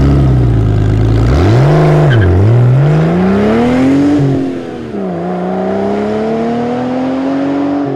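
Car engine revving: a low steady run, a quick blip about two seconds in, then a long climb in pitch that drops back once about five seconds in before rising again.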